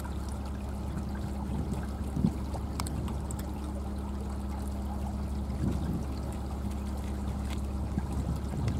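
Cat crunching dry kibble from a tray: small, irregular crunches over a steady low mechanical hum.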